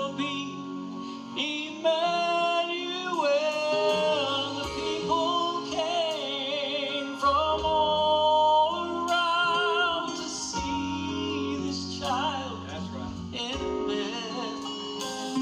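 Gospel song sung with a wavering vibrato on long held notes, over instrumental accompaniment with steady low notes.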